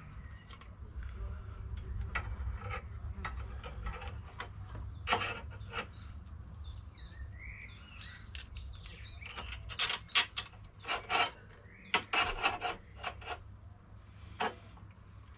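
Scattered clicks, taps and scrapes of metal parts as bolts are worked into a motorcycle pannier rack brace by hand, with a run of sharper knocks about two-thirds of the way through.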